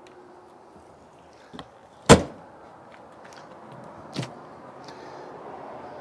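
An RV exterior storage compartment door shut with one sharp slam about two seconds in, followed by a lighter knock about two seconds later and a few small latch clicks.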